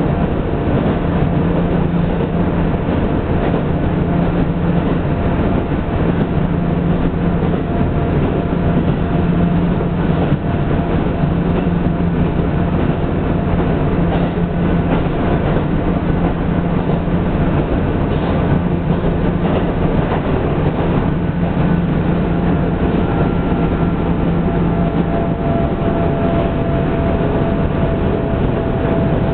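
Diesel railcar running along the line, heard from on board: a steady engine drone under continuous wheel-on-rail rumble.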